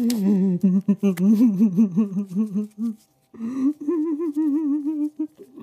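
A person humming a slow, wavering tune in two phrases, with a short break about three seconds in; the second phrase sits higher.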